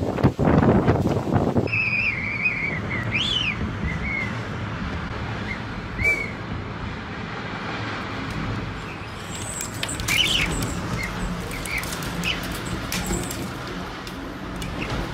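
Strong storm wind blowing loudly outside a window for the first second or two, then a steadier, gentler rush of wind with scattered short, high chirps and whistles.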